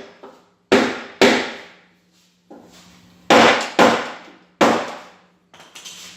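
Hammer striking metal: five loud blows, mostly in pairs about half a second apart, each ringing out briefly, with a few lighter knocks between. A steady low hum runs underneath.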